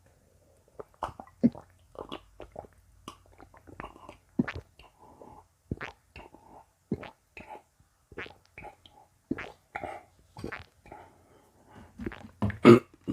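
A person drinking close to the microphone: a run of short, irregular gulps and wet mouth sounds, the loudest near the end.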